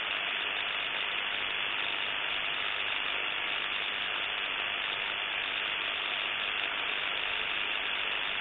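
Steady static hiss from a Sangean ATS-909X portable shortwave receiver in single-sideband mode on 28.550 MHz in the 10 m amateur band: band noise on an empty channel between transmissions.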